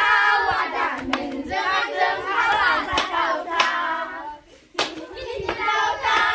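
A group of children singing a Bwisagu dance song together, with sharp claps or strikes about once a second. The singing drops out briefly about four seconds in, then starts again.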